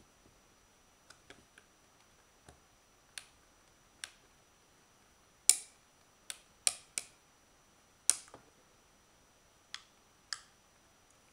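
Plastic parts of a Braun Series 1 1130 electric shaver clicking and snapping as the casing is worked apart by hand: a dozen or so separate sharp clicks at uneven intervals, the loudest a little over five seconds in and again about eight seconds in.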